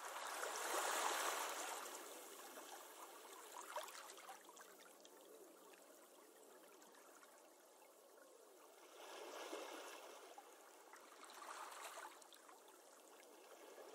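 Faint trickling, flowing water, louder about a second in and swelling twice more near the end.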